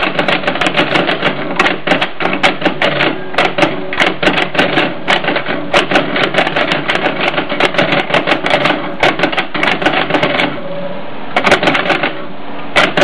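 1916 Hammond Multiplex typewriter being typed on: a quick, uneven run of sharp clacks, about four or five a second, as its hammer strikes the paper against the type shuttle. The typing stops briefly after about ten seconds, then a few more strokes follow.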